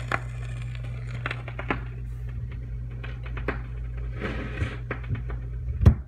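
Phonograph record playing through the silent gap between announcements: surface crackle and scattered clicks over a steady low hum, with one sharp loud click near the end.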